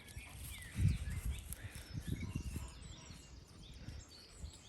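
Birds chirping in the background, with a few low thumps about a second in and again around two seconds in.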